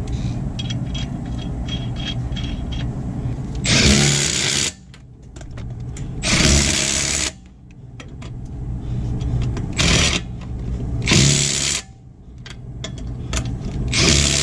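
Cordless impact wrench running lug nuts onto a truck wheel in five short bursts, each under about a second, snugging them up with the wheel still off the ground. Light clicking comes before the first burst.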